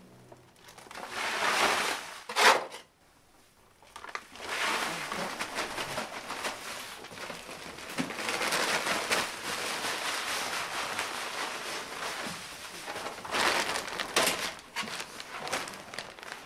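Dry feed pouring from a woven plastic sack into a metal feeding trough: a steady rushing hiss, with louder rustling and crinkling of the sack near the start and near the end.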